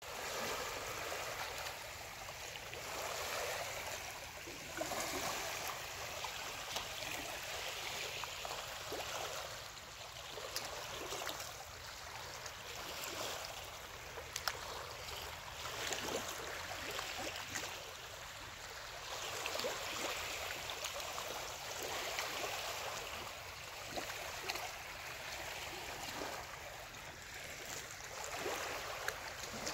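Small waves lapping and washing against a rocky lakeshore: a steady rushing splash that swells and eases every few seconds, with scattered small clicks of water on stone.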